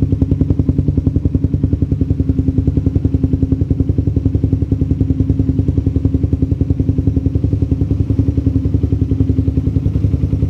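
Suzuki Satria FU 150's single-cylinder four-stroke engine idling steadily through an Arrow Trophy titanium silencer while it warms up, an even, rapid beat. The exhaust note is mellow and not tinny.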